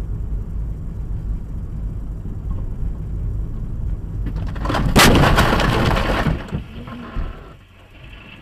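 Steady low road rumble inside a moving car. About five seconds in comes the sudden loud crash of a car collision, lasting about a second and a half before it dies away.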